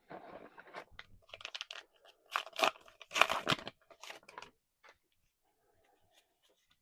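A foil trading-card booster pack wrapper being torn open and crinkled, in a run of crackly bursts that are loudest about two and a half to three and a half seconds in, then stop, leaving a few faint clicks.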